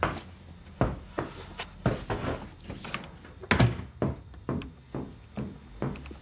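A series of irregular knocks and thumps, about one or two a second, the loudest about three and a half seconds in, with a brief faint squeak just before it.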